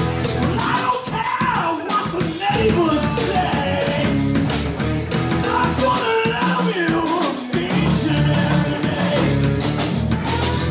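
Live rock band playing: electric guitar, electric bass and drum kit keep a steady beat, with a melody line gliding over the top.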